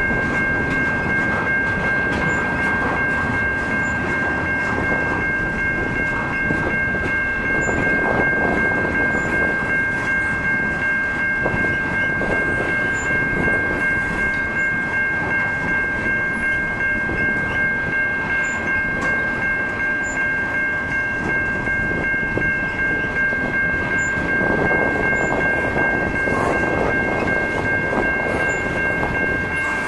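Freight train of flatcars and tank cars rolling past close by: a steady rumble of wheels on the rails, swelling and easing, with a steady high whine over it.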